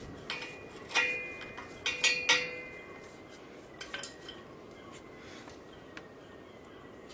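A metal hand tool knocking and scraping on rusted exhaust bolts as they are cleaned up. There are several clinks with a short metallic ring in the first two and a half seconds, then only a few faint ticks.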